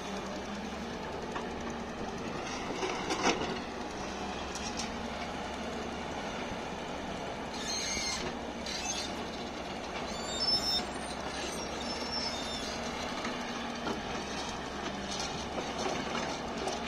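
Heavy tracked excavator's diesel engine running steadily, with scattered metal clanks and short high-pitched metallic squeals about eight and ten seconds in.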